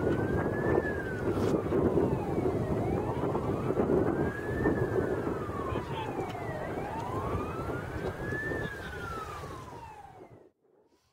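Fire engine siren wailing, slowly rising and falling about once every four seconds, over a loud rumbling noise. Near the end the sound cuts away abruptly, leaving only a faint wail.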